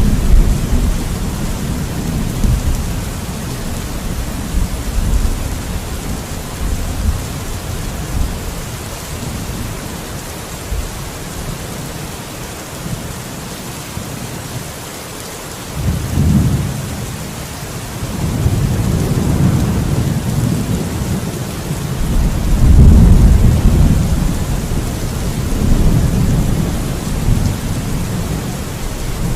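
Thunderstorm: steady rain hiss under rolling rumbles of thunder, which ease off in the middle and swell again from about halfway, loudest a few seconds later.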